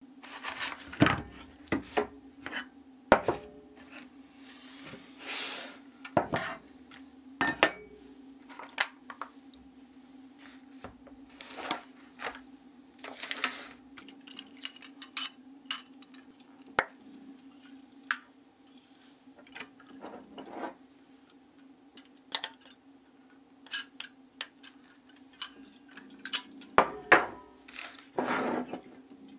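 Metal camping gear handled on a wooden tabletop: a string of separate clinks and knocks as a skillet, a knife and a small canister gas stove are set out and the stove's folding pot supports are swung open, with packet rustles between. Near the end a longer stretch of handling noise as a gas canister is fitted to the stove, all over a faint steady hum.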